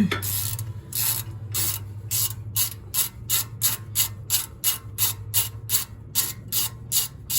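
Hand socket ratchet clicking in quick repeated strokes, speeding up to about three or four a second, as a 14 mm rear brake caliper bolt is backed out.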